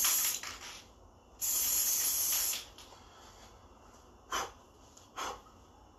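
Aerosol can of Krylon gray primer spraying with a steady hiss that stops about half a second in, then one more burst of about a second. Two brief soft sounds follow later.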